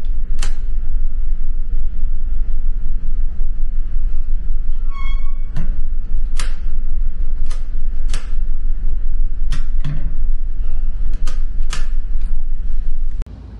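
Coin-locker key locks and small metal doors clicking and clacking as keys are turned and doors are opened and shut, about ten sharp clicks in all, with a brief ringing tone about five seconds in. Under them runs a steady low rumble from the ferry's engines.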